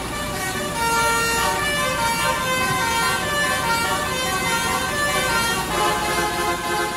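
Multi-tone 'telolet' bus horn tooting a melody, the notes changing every fraction of a second, over a low steady hum.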